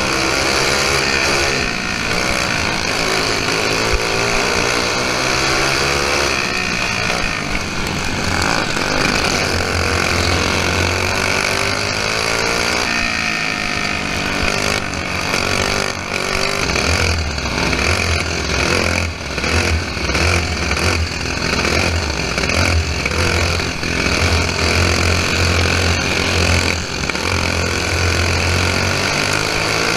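Single-cylinder Briggs & Stratton flathead kart engine racing hard, heard from on board: its pitch climbs as it revs out along the straights and drops back into the turns, over and over.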